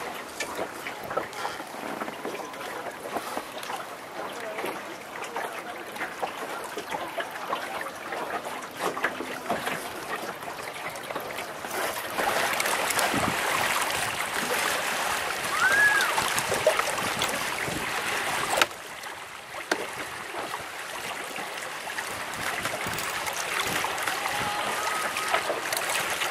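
Water splashing and trickling along a sailboat's hull as it sails, with many small knocks. It gets louder suddenly for several seconds in the middle, then drops back.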